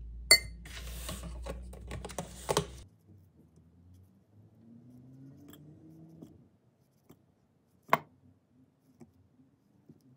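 A metal spoon scraping yogurt and clinking against a glass, with two sharp clinks in the first three seconds. Then it goes quieter while banana is sliced with a knife over the glass: a few faint ticks and one sharp tap about eight seconds in.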